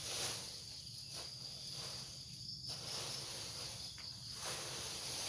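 Steady high-pitched chirring of insects, with intermittent scraping and rustling as a hoe is dragged through dry leaf litter and soil.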